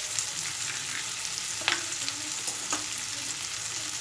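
Onion-and-spice masala sizzling in oil in a kadai, a steady hiss, with a few spatula scrapes and taps as it is stirred, the two clearest about a second and a half and two and a half seconds in.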